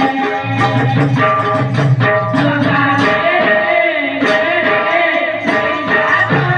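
Devotional kirtan music: singing over hand-drum percussion and jingling, with steady held notes from the accompanying instruments.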